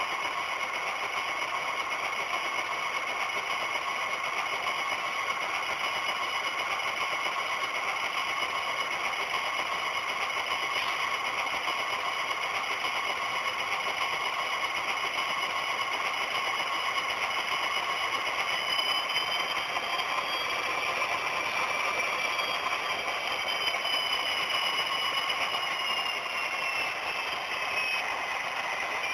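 Model diesel locomotives' small electric motors whining steadily as they run slowly along the track, with the running gear rattling. In the second half a higher whine rises, then slowly falls away.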